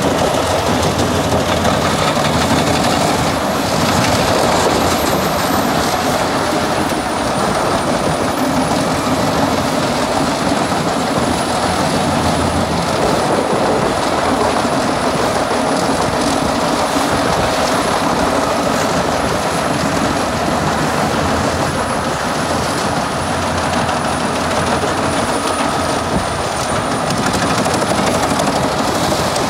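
Large crane-fed wood chipper running steadily and loudly, chipping logs as they are drawn in through its in-feed rollers.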